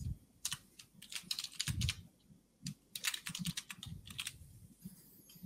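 Typing on a computer keyboard: quick runs of keystrokes in short bursts with brief pauses between them.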